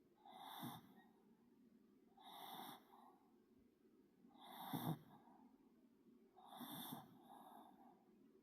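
A sleeping Pomeranian snoring faintly: four snores about two seconds apart, each with a thin high whistle.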